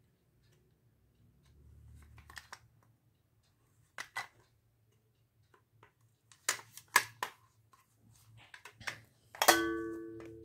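Clicks and metal clinks of a Prestige Svachh Clip-on stainless steel pressure cooker's lid and parts being handled. About nine and a half seconds in comes one loud metallic clang that rings for about a second.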